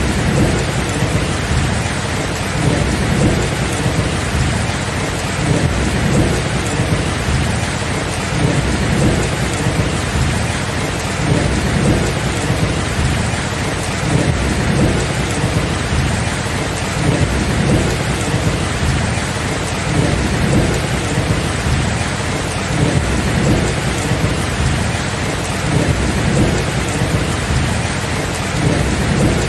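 Heavy rain falling steadily, with thunder rumbling low and continuously underneath, swelling and easing irregularly.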